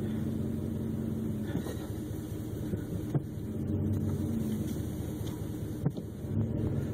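Old Ford truck's engine running under load as it pulls on a rope tied to a dead tree, its pitch shifting up and down. Two short sharp clicks come about three and six seconds in.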